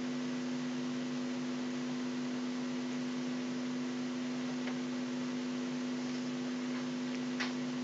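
Steady electrical hum made of several fixed tones over an even hiss, with a couple of faint clicks.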